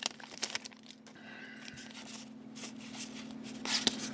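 Foil booster pack wrapper crinkling and rustling as it is handled, in a few short bursts, the loudest near the end.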